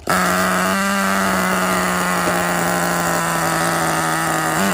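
Nitro RC car's small two-stroke glow engine starting up and running at a steady high-pitched idle, with a short blip of throttle near the end.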